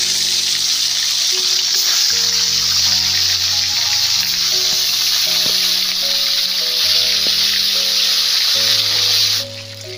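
Bhola fish sizzling loudly as they fry in hot oil in an aluminium kadai. The sizzle cuts off suddenly near the end.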